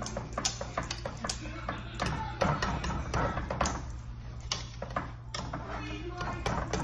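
Wire whisk clinking and knocking against a stainless steel pot while boiled potatoes are mashed: irregular metal clicks a few times a second, over a steady low hum.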